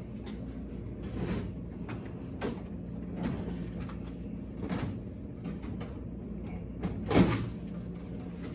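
Handling clunks and rattles of a vending machine's door and coin box as quarters are taken out, a few separate knocks with the loudest about seven seconds in, over a steady low machine hum.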